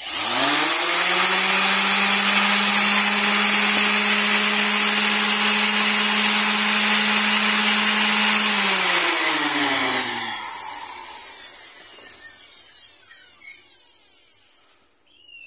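Ingco RS3208 320-watt single-speed orbital sander, running without load. Its motor is switched on and spins up within a second, runs steadily and loud for about eight seconds, then is switched off and winds down with a falling whine that fades over about five seconds.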